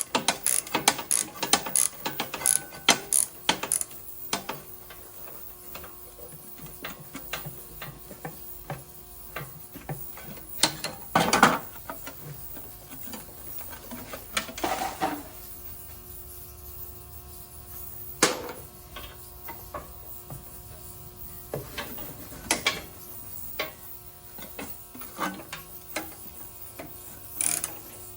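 Hand ratchet wrench clicking in quick runs as bolts are turned out. Occasional louder metal knocks come between the runs.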